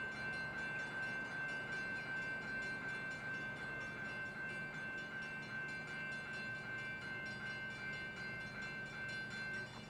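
A San Diego Trolley light-rail train sounding a steady high-pitched tone with several higher overtones, over a low rumble. The tone stops suddenly near the end.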